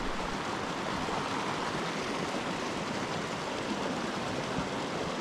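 Steady rushing of a small creek's flowing water, an even hiss that does not change.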